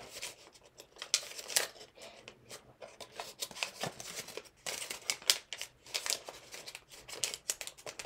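Origami paper being folded in half and creased by hand, with irregular crisp rustles and crackles.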